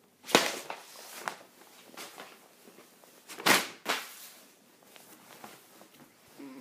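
Handling noise from a handheld camera held close to the face: a few short rubs and knocks on the microphone, the loudest about a third of a second in and again about three and a half seconds in, with faint clicks between.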